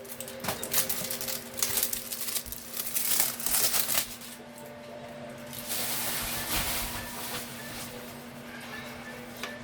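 Plastic packaging crinkling and rustling as a rolled diamond-painting canvas is unwrapped by hand: a quick run of crackly crinkles in the first four seconds, then softer rustling.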